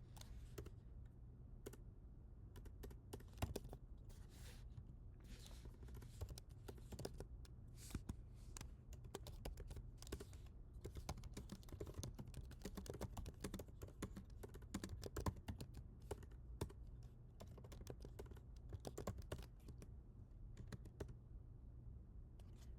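Computer keyboard typing: a steady, irregular run of key clicks with a few louder strokes, heard quietly over a faint low hum.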